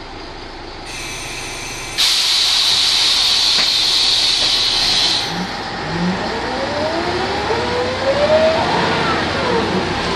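Ikarus 280 articulated bus heard from on board: a loud hiss of compressed air from its pneumatics lasting about three seconds, then the Rába D10 diesel and ZF automatic gearbox whining as they rise in pitch and ease off near the end.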